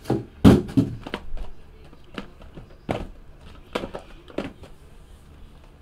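Sealed cardboard trading-card hobby boxes being handled and set down on a table: a series of irregular knocks and light bumps, busiest in the first second.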